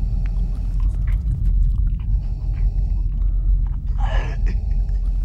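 A man choking and gagging as he is strangled, with a louder rasping gasp about four seconds in, over a steady low rumble.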